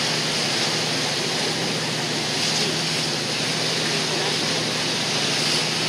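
Steady rush of wind and water over a low, even engine drone from a cruise boat under way.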